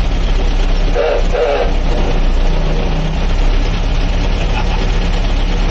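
Petrol engine of a vintage Dennis 4-ton lorry running steadily at low speed, heard from inside its wooden cab.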